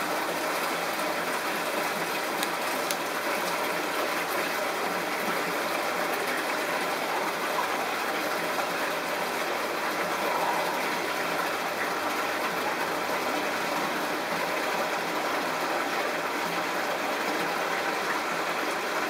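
Steady, even hiss and rush of aquarium equipment running: pump-driven water flow or aeration in the tank, with no change throughout.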